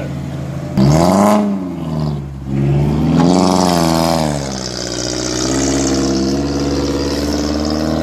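Off-road 4x4's engine revving hard in two surges, the first about a second in and the second around three seconds, its pitch rising and falling, then holding at a steady higher pitch under load.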